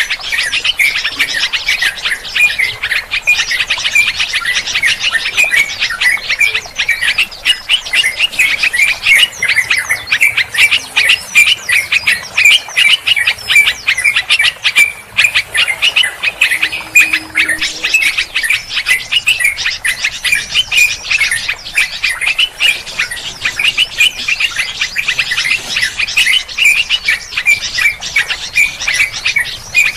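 A dense mix of many small birds chirping and chattering at once, rapid calls overlapping without a break: an Indonesian bird-trapping lure recording ('suara pikat') of noisy, agitated birds.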